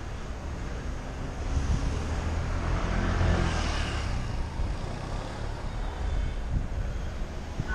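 Street traffic heard from a moving bicycle, under a steady low rumble. A motor vehicle passes close about three seconds in, swelling and then fading.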